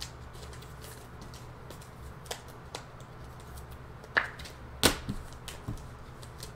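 Trading cards being handled and set down on a table: scattered soft taps and clicks, with two sharper clacks about four and five seconds in, over a low steady hum.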